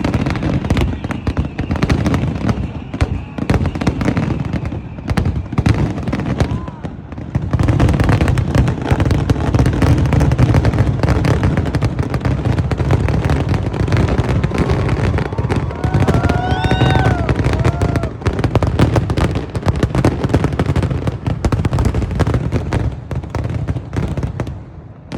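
Fireworks display: a dense, continuous barrage of booming bangs and crackling, easing briefly about seven seconds in, with a few high whistling glides about two-thirds of the way through.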